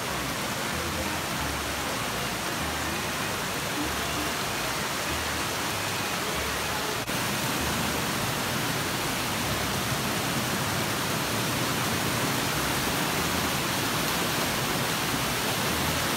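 Forest stream rushing and cascading over rocks: a steady, even rush of white water.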